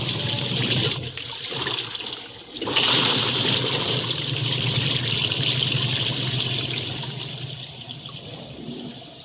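Water rushing and churning in a small 12 V washing machine, over a low motor hum. It dips briefly about two seconds in, comes back stronger, then slowly fades toward the end.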